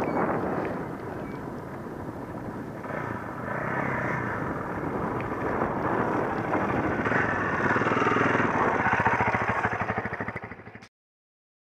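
Dirt bike engines running, growing louder as a second bike rides up toward the first, then cutting off abruptly near the end.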